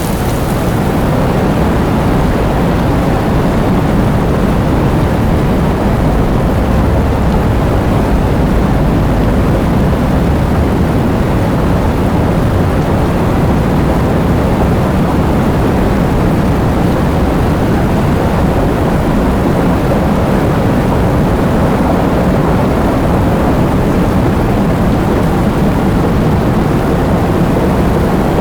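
Heavy rain with wind: a loud, steady rushing noise, heaviest in the low end, without a break.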